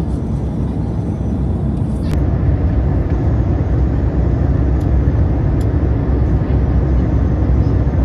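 Airliner cabin noise: a steady low rumble of jet engines and airflow. A click about two seconds in, after which the rumble is louder.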